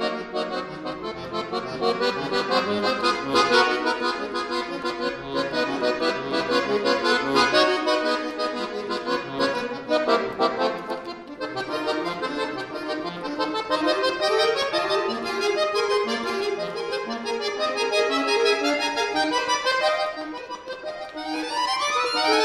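Chromatic button accordion played solo in a fast classical piece: dense quick runs of notes over lower accompanying notes, ending in a rapid rising run.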